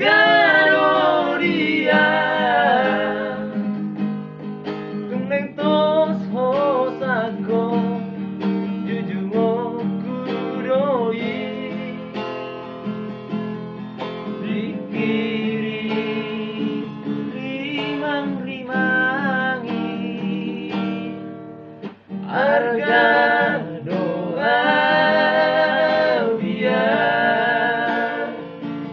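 Men singing a song to a strummed acoustic guitar, with a brief break in the music about two-thirds of the way through.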